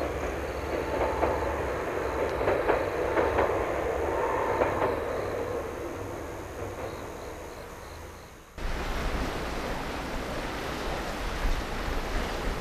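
A train crossing a high steel trestle viaduct, heard from afar: a running rumble with a few sharp clicks that fades away over several seconds. After an abrupt cut about eight and a half seconds in, waves wash on a rocky shore with wind on the microphone.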